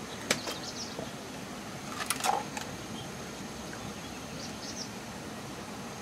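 Steady rush of a shallow flowing stream, with a sharp click just after the start and a quick cluster of clicks and knocks about two seconds in as a freshwater mussel shell is handled at the water's edge.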